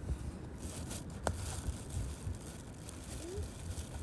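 Small campfire of burning pine cones crackling, with scattered clicks and one sharp pop a little over a second in.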